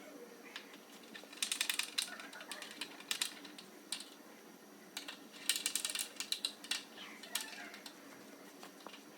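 Ratcheting hand tool clicking in two short, quick runs with a few single clicks between, as screws are driven to join the front splitter sections.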